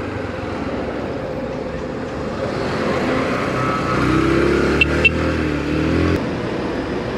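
Yamaha YBR 125 motorcycle's single-cylinder engine running in city traffic, with wind noise on the helmet-camera microphone. From about four seconds in, a louder engine hum lasts about two seconds as a car pulls close alongside, and two short clicks come near five seconds.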